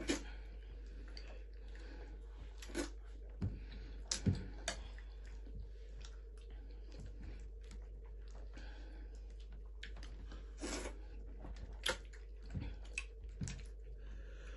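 Eating by hand: scattered short wet smacks and clicks from chewing and from fingers pinching starch fufu and dipping it in soup. They come at irregular times over a steady low hum.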